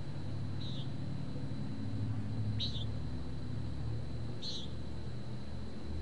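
Nighthawk giving short peent calls, three of them about two seconds apart, over a steady low hum of town traffic, picked up through a parabolic microphone.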